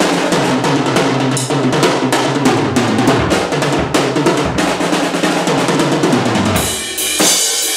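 Acoustic drum kit played in a fast run of snare, tom and bass-drum strokes, with cymbal crashes ringing out near the end.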